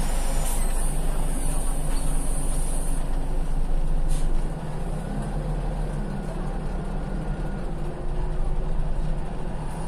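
Scania CL94UB city bus heard from inside the cabin, its diesel engine idling with a steady low drone. A high hiss of compressed air runs for the first few seconds, and a single clunk about four seconds in is followed by a slightly quieter run.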